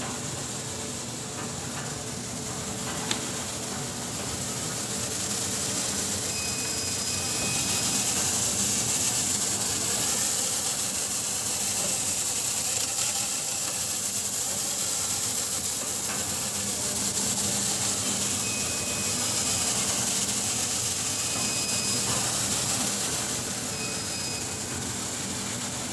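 BOPP adhesive-tape coating and slitting-rewinding machinery running: a steady mechanical hum under a high hiss, growing louder over the first several seconds. Faint short high tones come and go.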